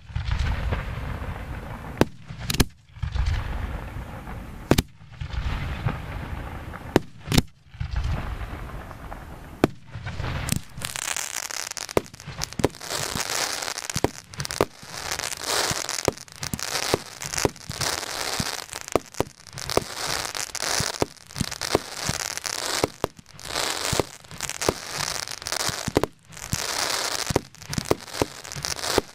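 Fireworks going off close by. For the first ten seconds a low rumbling spray is broken by several sharp bangs; from about ten seconds in, a dense crackling hiss takes over, dotted with many sharp pops.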